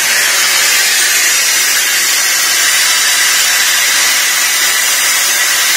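Loud, steady hiss of compressed air escaping from an Indian Railways coach's brake pipe through the alarm-chain valve: a chain pull has opened it and it has not yet been reset.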